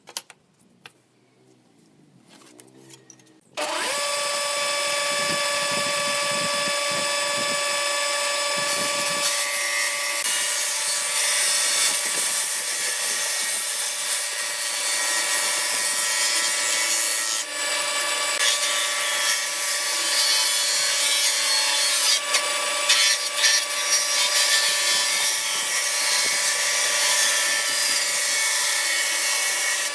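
A few light clicks, then about three and a half seconds in an electric power tool starts up and works wood steadily: a constant motor whine over a rasping, hissing cut.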